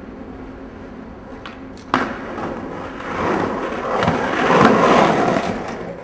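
Skateboard rolling, then a sharp clack about two seconds in as the board lands on a concrete stair ledge, followed by a long scraping grind down the ledge that grows louder.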